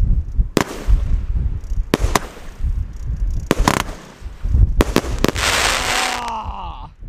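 Consumer fireworks going off in strong wind: about seven sharp bangs, then a loud crackling hiss about five and a half seconds in, followed by several falling whistles near the end. Wind rumbles on the microphone throughout.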